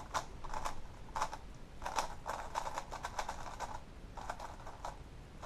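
A 3x3 speedcube being turned in both hands: quick flurries of plastic clicks and clacks from the layers snapping round, with short pauses between the flurries.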